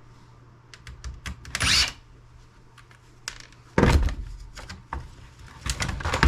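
Laptop casing and parts clicking and knocking as the laptop is taken apart, with a short scrape about a second and a half in and heavier thunks near four and six seconds.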